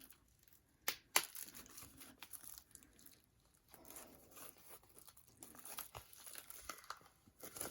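Crinkling and rustling of an album's packaging being handled and worked open, with two sharp clicks about a second in.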